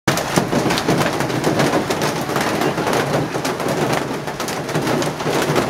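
Hail and heavy rain pelting down: a loud, dense, steady clatter of many small impacts.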